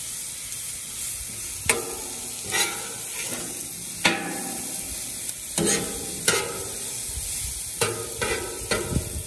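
Vegetables sizzling on a Blackstone 36-inch flat-top griddle as a metal spatula turns them, scraping and clacking against the steel cooktop about ten times at irregular intervals over a steady frying hiss.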